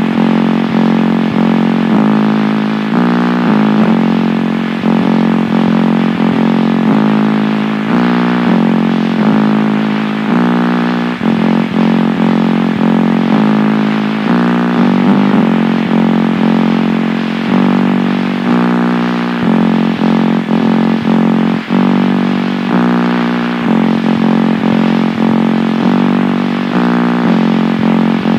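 Noise music from a 1999 underground cassette: a loud, dense buzzing drone of stacked tones that changes step by step about once a second in a repeating pattern.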